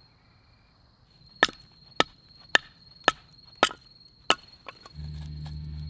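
A nata chopping knife chopping into wood: six sharp, evenly spaced chops, about two a second. A steady high insect trill runs underneath, and a low steady hum comes in near the end.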